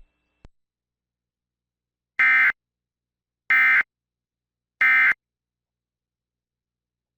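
Emergency Alert System end-of-message data tones: three identical short digital bursts, each about a third of a second long and just over a second apart. They signal that the severe thunderstorm warning message has ended.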